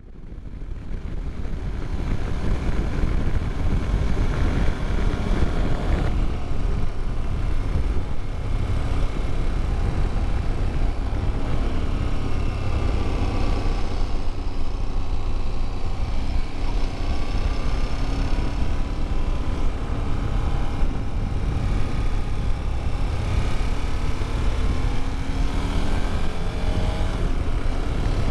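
Wind rush and buffeting on a bike-mounted camera at road speed, with the KTM 1290 Super Adventure S V-twin engine running underneath, its pitch rising and falling with the throttle. The sound fades in over the first couple of seconds.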